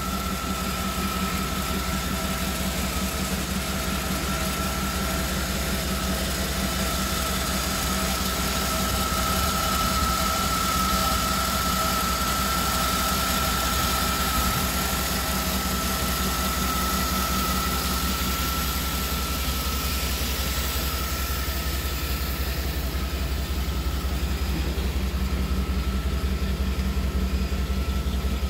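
Engine of a 1959 Chevrolet Apache pickup on a K5 Blazer chassis idling steadily, with a thin steady high whine over the low rumble.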